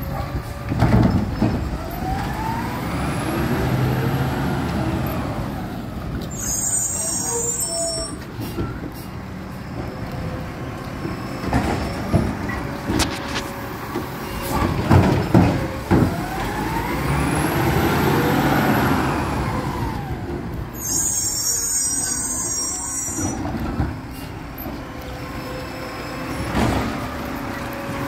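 Garbage truck running, its engine twice rising and falling in pitch, each time followed by a sharp hiss of air from the air brakes lasting about a second and a half. Scattered clanks and knocks.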